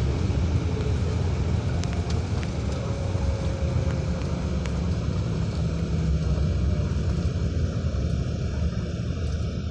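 Steady low rumble of a bus's engine and road noise, heard from inside the cabin while it travels along the motorway, with a few light clicks in the first half.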